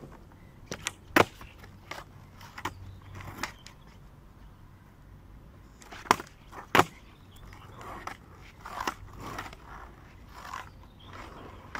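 Freestyle skateboarding on rough asphalt: the board clacks sharply against the ground several times, loudest about a second in and twice in quick succession around six to seven seconds in, between stretches of wheels rolling.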